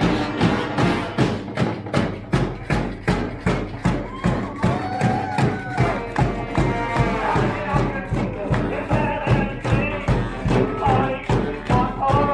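Street brass band playing, driven by a steady, heavy drum beat with horn lines over it.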